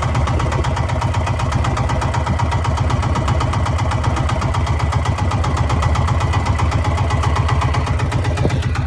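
A small fishing boat's engine running steadily with a rapid, even chugging pulse.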